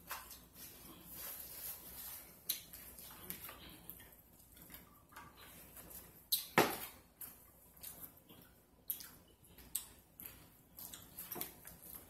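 Wet chewing and lip-smacking of people eating grilled panini sandwiches: a string of small, irregular mouth clicks, with one louder knock about six and a half seconds in.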